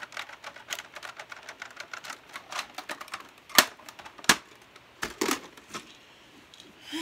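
Hard plastic of a toy foam-dart blaster clicking and clacking as it is handled. There are many small irregular clicks, then a few louder knocks before it is set down.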